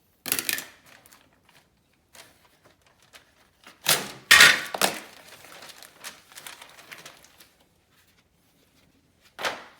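Handling noises of wallcovering work: short crackling, rustling bursts, like paper or grasscloth being crinkled or peeled. The loudest come about four seconds in, with a last one near the end.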